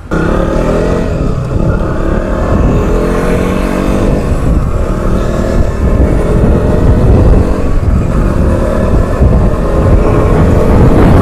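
Motorcycle engine revving up as the bike pulls away from a standstill. Its note rises over the first few seconds, then it runs on steadily at riding speed.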